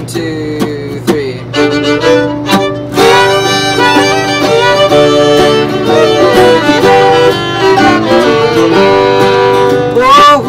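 Acoustic bluegrass band playing: two fiddles, a mandolin and an acoustic guitar. For the first few seconds only a few plucked strums sound, then the full band comes in at about three seconds with the fiddles carrying the melody. Near the end a young man's voice starts singing.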